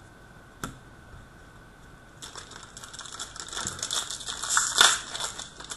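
Plastic wrapper of an Upper Deck Ice hockey card pack crinkling as it is handled and pulled open, building from about two seconds in and loudest near the end, with a single light click shortly before.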